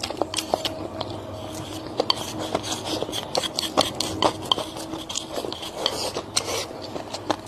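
Close-up eating sounds: crisp bites and chewing mixed with utensils clicking and scraping against a dish, in many irregular sharp clicks.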